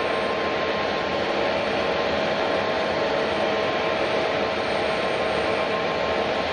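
Jet airliner engines running: a steady rushing noise with a few held whining tones, with no rise or fall.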